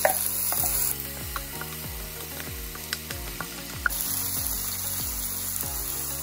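Finely chopped onion, celery and garlic sizzling in hot vegetable oil in a skillet, with a wooden spoon stirring them through. The sizzle is loudest just as the vegetables go into the oil, eases after about a second, and picks up again near the end.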